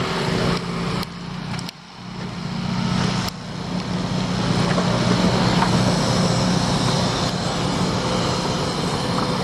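Diesel engine of heavy earthmoving equipment running steadily, growing louder over the first few seconds. The sound dips sharply for a moment a couple of times before settling.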